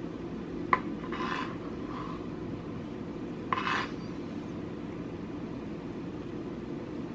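Chef's knife cutting cherry tomatoes on a plastic cutting board: a sharp tap of the blade on the board under a second in, and short slicing and scraping noises about a second and about three and a half seconds in.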